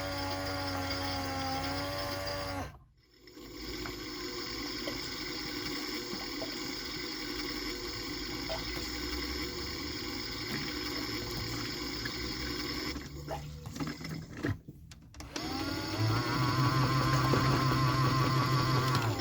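Washing machine running in its final rinse: a motor whine for the first few seconds, then a steadier hum with water sounds. It cuts out briefly about three seconds in and again around thirteen to fifteen seconds, and a louder low motor hum with a wavering whine starts near the end.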